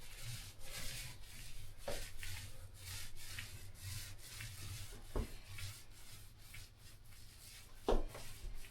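Paintbrush bristles rubbing in repeated strokes as a binding primer (peel stop) is brushed over the edges of flaking paint. Three dull knocks about two, five and eight seconds in.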